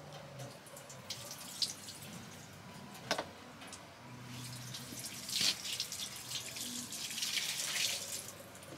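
Portable cassette toilet being emptied through its spout into a stainless steel disposal sink: waste liquid pouring and splashing into the basin, heavier in the second half. A couple of sharp knocks come early, about a second and a half apart.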